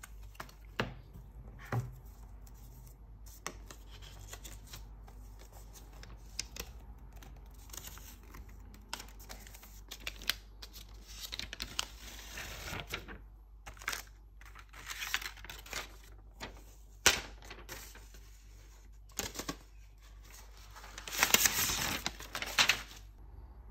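Paper inserts and the iPad's protective plastic film being handled and peeled off: scattered taps, clicks and rustles, a stretch of peeling about halfway through, and a louder rustling stretch near the end.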